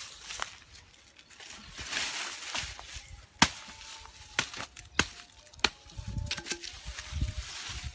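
Machete chopping into brush and ground: four sharp chops, starting about three and a half seconds in and spaced roughly half a second to a second apart, after rustling of dry leaves and twigs.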